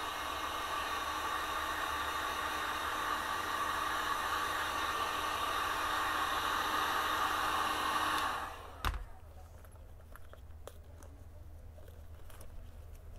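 Electric heat gun blowing hot air onto a shoe heel to soften the glue of its leather covering: a steady rush of air over a light fan hum. About eight seconds in it is switched off and winds down quickly. A sharp click follows, then faint handling taps.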